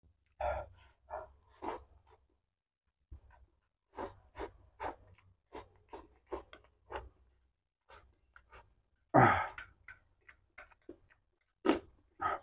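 Close-miked eating sounds: instant fried noodles slurped and chewed, with a run of short wet mouth clicks and smacks, and a louder one about nine seconds in.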